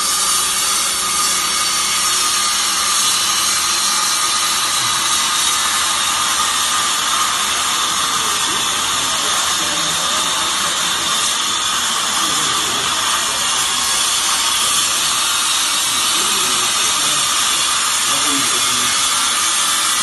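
Hydraulic fibre baler's power unit running steadily: an even motor whine over a constant hiss.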